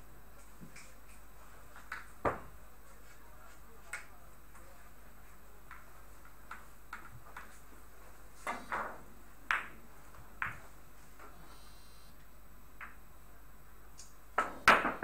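Billiard balls clacking in a quiet billiard hall: scattered single sharp clicks with a short ring, a few close together just past the middle, and a louder cluster of clacks near the end.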